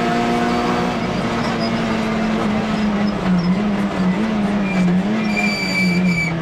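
Rally car's engine heard inside the cockpit while racing, revs steady at first, then dipping and rising several times in the second half. A thin, high squeal sounds briefly near the end.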